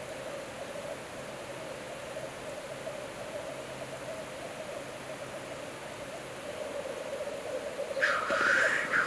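Black grouse cocks bubbling on the lek: a continuous chorus of low, cooing song. Near the end a louder, harsher call comes in over it.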